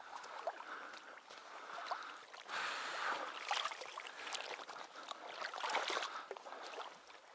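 Water sloshing and splashing in uneven surges as someone wades through shallow marsh water, louder about a third of the way in and again past the middle.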